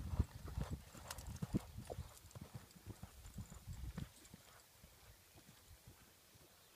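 A horse's hoofbeats on soft arena dirt at a canter: a run of dull thuds, fading as the horse moves away and dying out about four seconds in.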